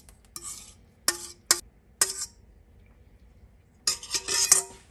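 A metal utensil clinking and scraping against a mixing bowl as the last of the pie filling is scraped out: three sharp ringing clinks in the first couple of seconds, then a short clatter of dishes near the end as the bowl and utensil are put down.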